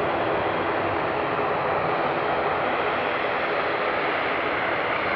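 Airbus A321-211 jet airliner's two CFM56 turbofan engines at takeoff power as it climbs out after departure. A steady rushing jet noise, even in level throughout.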